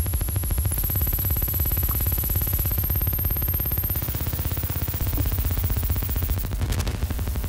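Benjolin and fourses analogue synthesizers making a harsh, fast-pulsing low buzz. Over it sits a thin, very high whistle that jumps up in pitch three times, about one, three and four seconds in. Noisy crackling bursts come in near the end.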